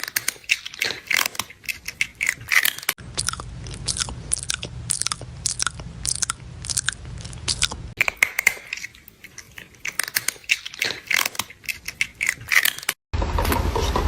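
Crunchy chewing and biting: rapid crisp crunches, one after another, as of something crunchy being eaten, with a low hum underneath for a few seconds in the middle. Near the end it cuts off suddenly to a steady rumbling noise.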